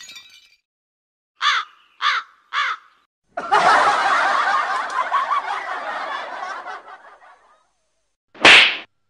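Three short giggles in a row, then about four seconds of laughter, then one short sharp smack near the end.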